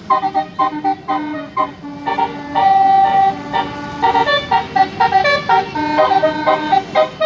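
Bus 'telolet basuri' musical air horn playing a quick melody, mostly short notes with a few longer held ones.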